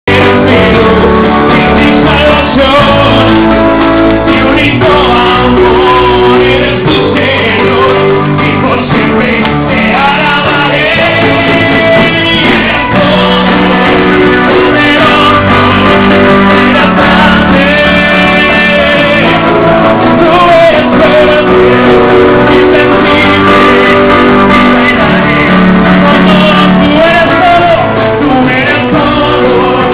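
A crowd singing a worship song together with hand clapping, over loud music with guitar, in a large hall. Loud and continuous throughout.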